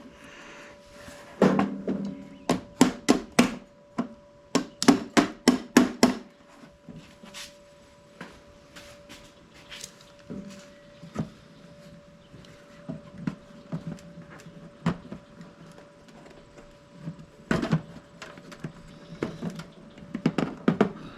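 Sharp taps and knocks on a scooter's plastic trunk hinge as it is worked back into place. There are two quick runs of about five taps a second in the first six seconds, then scattered knocks and clicks, and two louder clusters near the end.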